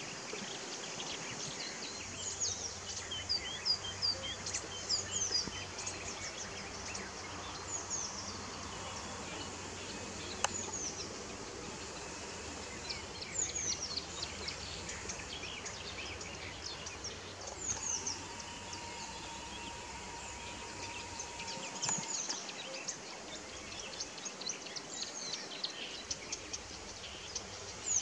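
Several songbirds singing, a chorus of short, high, quick chirps and trills repeating throughout over a steady background hiss. A faint steady hum joins for a few seconds past the middle.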